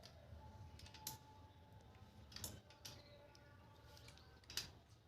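A few faint metallic clicks and ticks, the loudest near the end, as a 5 mm Allen key works loose the bolts holding a bicycle disc brake caliper.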